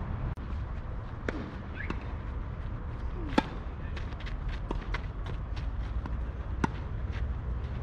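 Tennis rackets striking the ball in a rally on a clay court: two sharp, loud hits about three seconds apart, with fainter ticks between them. A steady low rumble runs underneath.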